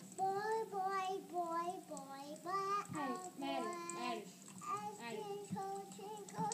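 A two-year-old girl singing, a run of drawn-out notes that slide up and down in short phrases.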